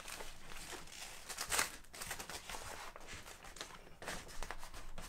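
Plastic sheeting rustling and crinkling as it is handled and pressed against the van's metal roof with masking tape, in irregular bursts, the loudest about one and a half seconds in.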